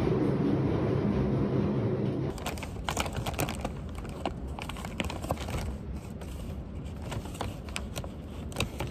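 An underground train's carriage rumble for about two seconds, cutting off abruptly, then a paper bag rustling and crinkling with many irregular small crackles as hands reach into it.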